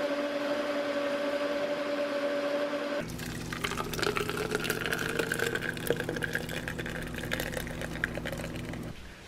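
A blender running with a steady hum for about three seconds. It then gives way to a thick smoothie pouring from the blender jar into a plastic cup, with wet dripping and splattering.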